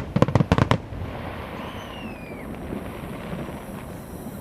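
A rapid string of fireworks bangs in the first second, then steady low background noise with a faint falling tone about two seconds in.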